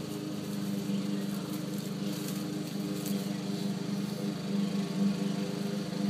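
A motor running steadily: a low, even hum.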